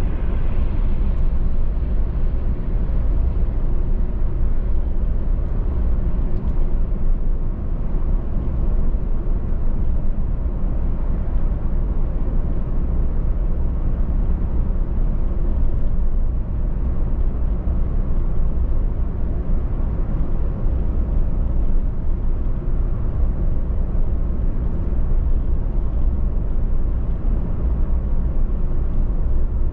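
A car driving steadily on a highway: a constant low rumble of road and tyre noise with engine hum.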